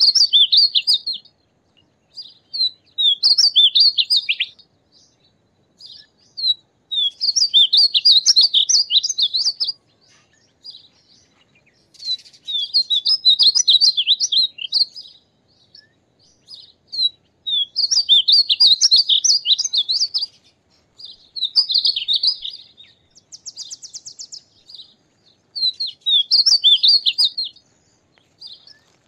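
Painted bunting singing: a run of high, quick warbled song phrases, each one to three seconds long, repeated after short pauses about eight times.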